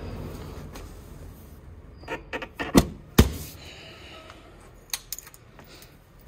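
Motorcycle seat being refitted and locked: keys jingling, light clicks, and two sharp knocks about three seconds in as the seat is pressed home.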